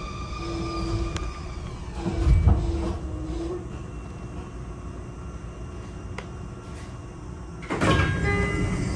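Interior of a Sotetsu 20000 series electric train: the whine of its Hitachi hybrid SiC VVVF inverter falls in pitch as the train brakes, and cuts out about three and a half seconds in as the train comes to a stop. Near the end there is a sudden loud rush with short tones as the sliding doors open.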